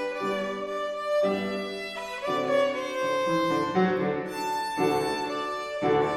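A bowed string instrument playing a classical melody, moving from note to note with fresh attacks every second or so.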